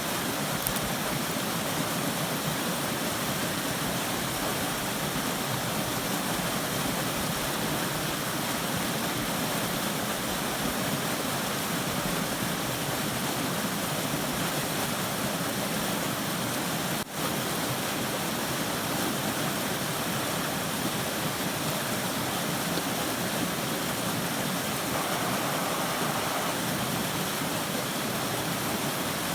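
Steady rushing of a small moorland river tumbling over rocks at a little waterfall into a pool, with a momentary dropout about 17 seconds in.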